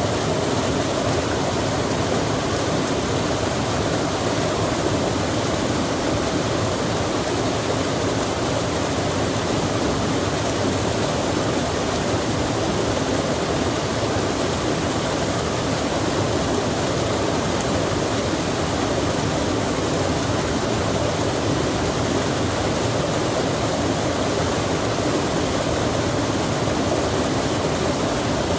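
Steady, unbroken rush of flowing water, as from a mountain stream or waterfall.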